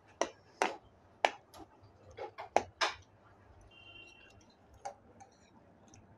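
Eating sounds at a meal of chow mein noodles: about eight sharp, irregular clicks in the first three seconds, then fainter ticks, with one more click near the end.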